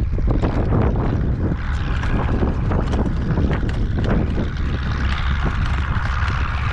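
Strong wind buffeting the microphone, over the quick knocks and rattle of a horse trotting in harness.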